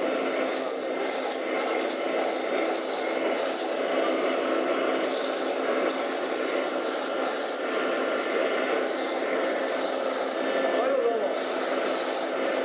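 KATO-TECHNO KS-1000FA metal spinning lathe at work, its tooling rubbing against the spinning sheet-metal part with a steady scraping noise under a faint machine hum. A high hiss cuts in and out over and over.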